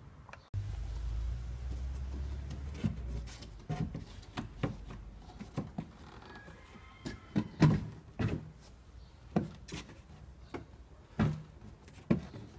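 Irregular hollow knocks and clunks as the black plastic window-regulator frame of a Nissan Murano Z51 front door is handled and worked loose against the door's inner metal. The loudest knocks come about two-thirds of the way through and again near the end. A low rumble runs through the first three seconds.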